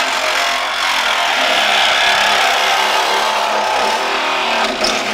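Ingersoll Rand 12-volt cordless compact reciprocating saw running at speed, its blade cutting steadily through a car's sheet-metal body panel.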